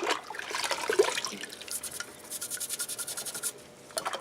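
A brush scrubbing a Solex 34 PICT-3 carburetor part. There is a sharp knock at the start, then rubbing, then a run of quick, rapid scrubbing strokes about two seconds in.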